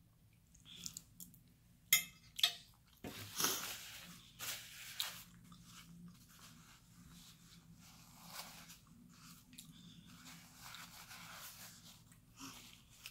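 Chewing, then two sharp clicks as a fork is set down on a plate about two seconds in, followed by a paper napkin crinkling and rustling as it is unfolded and used to wipe the mouth.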